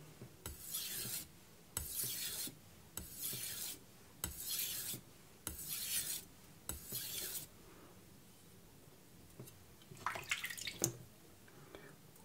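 Aogami #2 carbon-steel kitchen knife drawn in full-length sharpening strokes across a Naniwa Pro 1000-grit whetstone: six even gritty hissing strokes about a second apart. After a pause, one shorter, harsher scrape.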